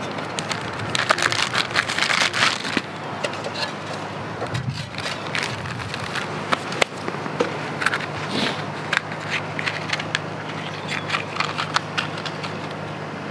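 Rustling, scraping and crackling as fire-starter sticks are handled and pushed into the vent openings of a charcoal-filled konro grill. The noises are irregular, with clusters in the first few seconds, around the middle and near the end.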